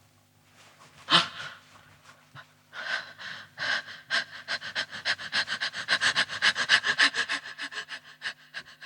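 A person breathing hard: one sharp, loud breath about a second in, then panting that builds into fast, even, rhythmic breaths, several a second.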